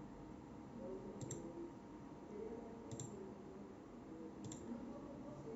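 Three faint computer mouse clicks, about a second and a half apart, over quiet room tone.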